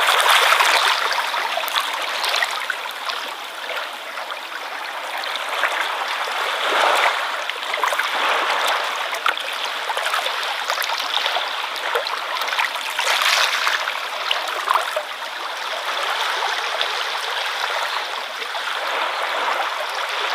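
Ocean waves washing against the shore: a continuous rush of water that swells louder every six or seven seconds.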